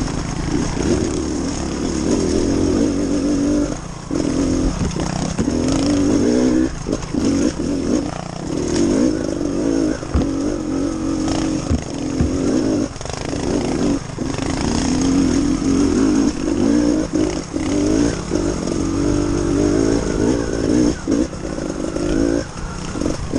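Trials motorcycle engine running under the rider's throttle, pulling in bursts that cut back for a moment many times over.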